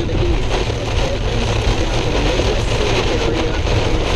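A car driving in a heavy rainstorm, heard from inside the cabin: a steady, loud rush of road, engine and rain noise with a deep rumble underneath.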